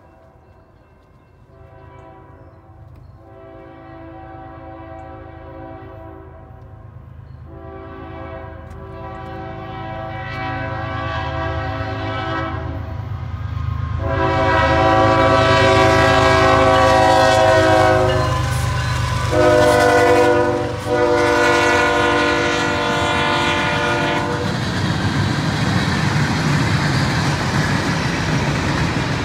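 CSX freight locomotive's air horn sounding a chord of several tones in repeated blasts that grow louder as the train approaches. The blasts end in the long-long-short-long grade-crossing signal, the last two slightly lower in pitch. Then the diesel locomotive and cars rumble past over the rails.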